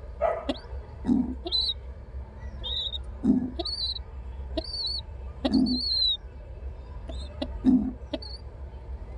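Pigeon squab begging with short, high squeaks about once or twice a second, one longer squeak falling in pitch a little after halfway. Low cooing notes from the nest come about every two seconds.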